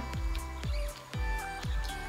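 Background electronic music with a steady beat of deep, downward-sliding bass hits, about two a second, under held synth tones.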